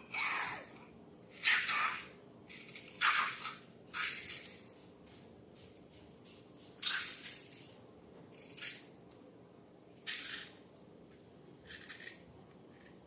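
Slime squelching in a series of short, wet squishes, about eight of them at irregular intervals a second or more apart.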